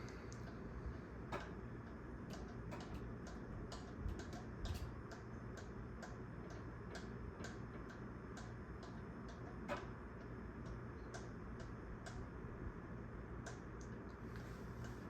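Casablanca Holliston ceiling fan running on high speed: a steady low hum and air noise with quick, slightly uneven ticks a few times a second. The ticking is the scraping the owner notes gets worse at high speed.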